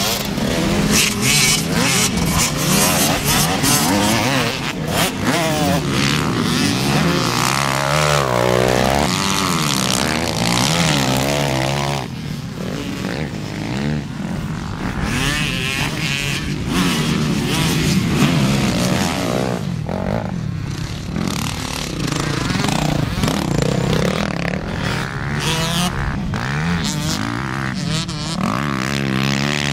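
Classic twinshock motocross bikes racing, several engines revving up and down as they accelerate over the track. The sound drops and changes suddenly about twelve seconds in.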